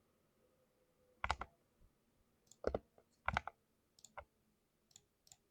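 Keys pressed one at a time on a 60% mechanical keyboard with lubed Cherry MX switches. There are about six separate, irregularly spaced keystrokes, some in quick pairs.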